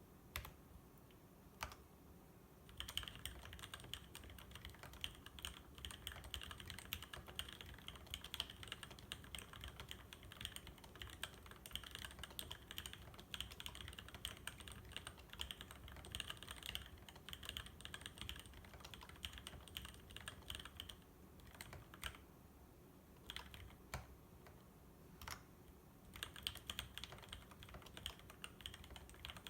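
Typing on a custom mechanical keyboard with vintage Cherry MX Black linear switches (62 g) and DSA/SA-profile keycaps: a few single keystrokes, then a long run of fast continuous typing that pauses to scattered keypresses a little past the middle before picking up again near the end.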